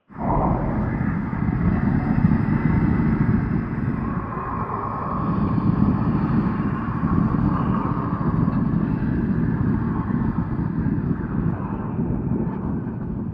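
Distorted industrial horror drone: a dense, steady low rumble with a rough, grinding middle layer, starting abruptly and holding without a break.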